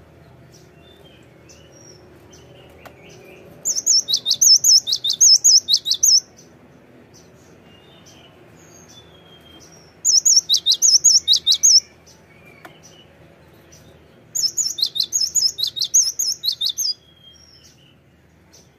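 Cinereous tit (gelatik batu) singing: three bursts of fast, high, repeated notes, each lasting two to three seconds, with soft single chirps in the gaps between them.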